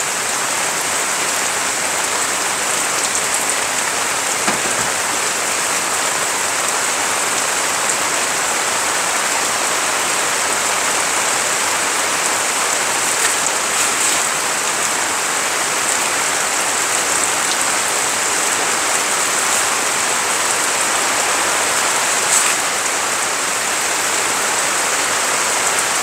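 Steady rain falling on wet gravel ground and a tarp: an even hiss, with a few louder drop taps now and then.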